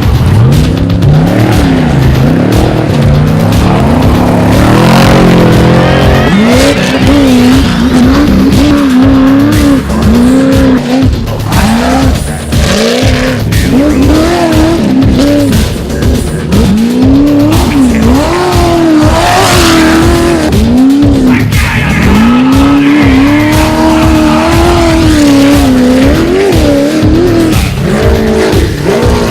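Off-road race vehicle's engine revving hard, its pitch repeatedly climbing and dropping back as the throttle is worked.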